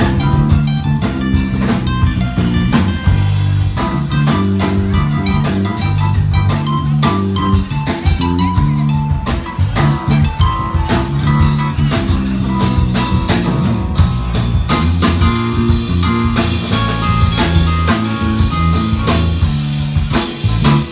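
Live band playing an instrumental number: a moving electric bass line, drum kit and keyboard.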